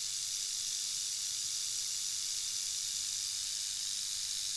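Timber rattlesnake rattling its tail without a break, a steady high buzz. This is the warning display of an agitated snake.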